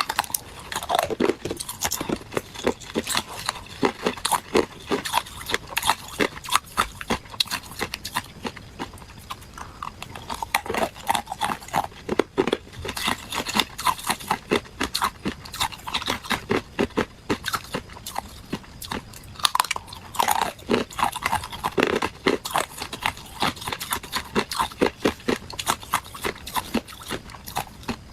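A person biting and chewing hard ice cubes: rapid, sharp crunches of ice breaking between the teeth, in quick runs with short pauses.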